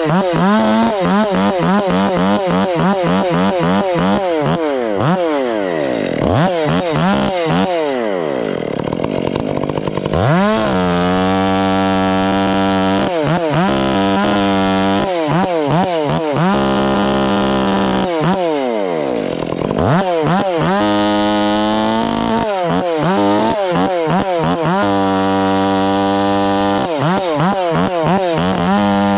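Two-stroke chainsaw limbing and bucking a felled log: the engine revs up and drops back over and over for the first ten seconds, then is held at steady full throttle through long cuts, with a short spell of revving up and down in between.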